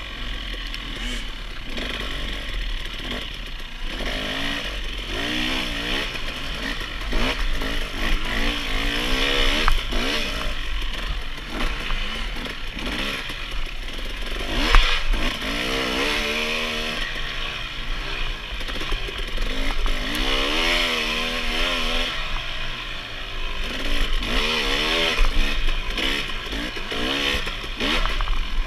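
Off-road dirt bike engine revving up and down over and over as it is ridden hard over rough ground, with rattling and clatter from the bike. There is one sharp knock about 15 seconds in.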